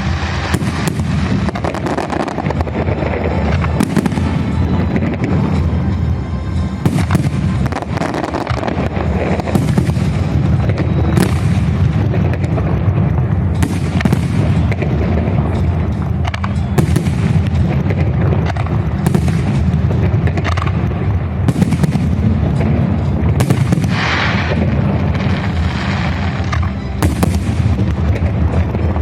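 Holiday fireworks salute: shells bursting in quick succession, a sharp bang about every second, over a continuous low rumble.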